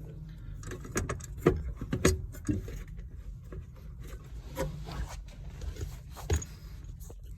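A clutch pedal assembly being worked into place under a truck's dash: scattered light knocks, clicks and rubbing of metal parts, over a faint low hum.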